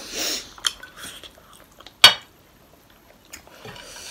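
Tableware sounds: a short hiss right at the start, then one sharp, ringing clink of a metal fork against a ceramic plate about two seconds in, with a few faint small ticks around it.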